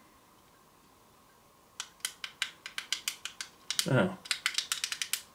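Small plastic keypad buttons of a handheld electronic Bible audio player clicking under quick, irregular presses, starting about two seconds in. A short sound falling steeply in pitch comes about four seconds in.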